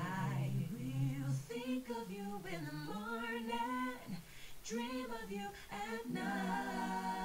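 Multitracked a cappella female vocal harmonies: one woman's voice recorded in many stacked parts, played back together as an R&B-style harmony section. The parts move together through short sung phrases with brief breaks and settle into a held chord about six seconds in.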